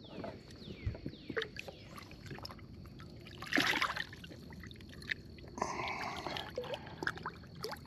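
Lake water splashing and trickling as a largemouth bass is lowered by hand over the boat's side and released, with the loudest splash about three and a half seconds in.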